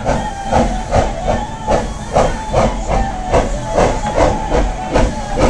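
Narrow-gauge steam locomotive working, its exhaust chuffing in an even beat of about two and a half strokes a second with steam hiss.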